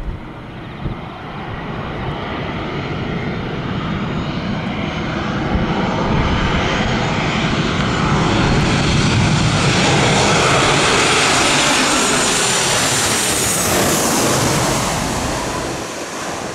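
Boeing 737-800 airliner's CFM56 turbofan engines on final approach, growing steadily louder as the jet comes in low. Near the end it passes overhead, its high whine sliding down in pitch, then it fades as it heads away to land.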